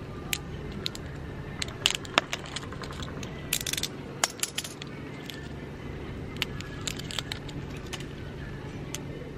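Small cylindrical batteries clinking against one another in a hand: scattered light metallic clicks, with a quick flurry of them about three and a half seconds in.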